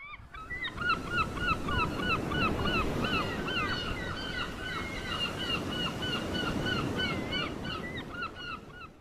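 A flock of birds calling constantly, many overlapping short calls that bend up and down in pitch, over a steady low rushing noise. It fades in at the start.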